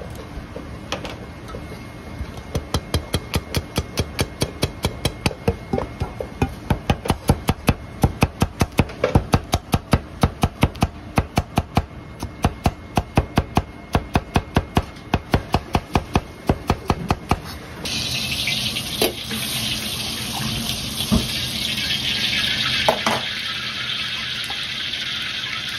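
Chinese cleaver chopping blanched white Japanese leek on a cutting board: a few lighter cuts, then a fast, even run of about four strokes a second. Near the end the chopping stops and a steady sizzle of Sichuan pepper oil heating in a wok takes over, with a few pops.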